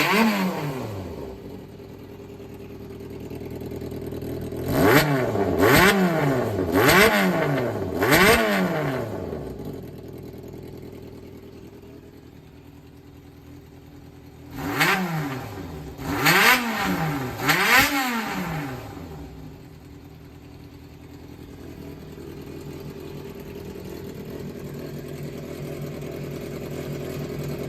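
Yamaha XJR400's air-cooled inline-four engine idling, blipped with the throttle four times in quick succession, settling back to idle, then blipped three more times. Each blip rises and falls quickly in pitch. The seller describes the engine as free of abnormal noise.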